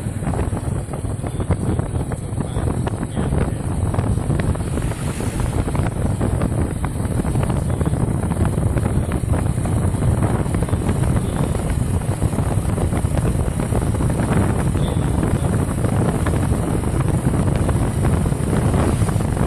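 Wind buffeting the microphone over the steady rumble of a vehicle on the move, with no sudden events.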